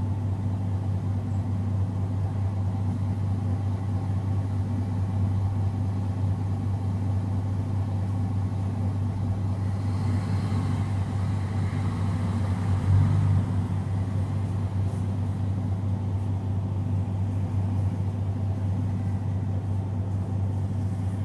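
MAN NG313 bus's 12-litre MAN D2866 LUH turbo-diesel, a horizontal inline six, idling steadily with a deep, even hum, with a brief slight swell about thirteen seconds in.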